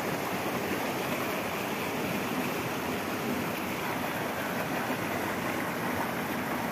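Steady rushing of a rocky mountain stream spilling over a small waterfall.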